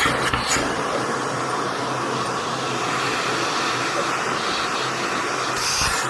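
Philips PowerPro FC9352/01 bagless vacuum cleaner running steadily: a constant motor hum under a rush of suction air.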